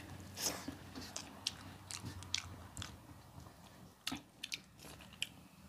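Close mouth sounds of someone chewing a handful of rice and dal: soft, irregular wet smacks and clicks. Near the end, a few sharper clicks come as fingers gather food on a steel plate.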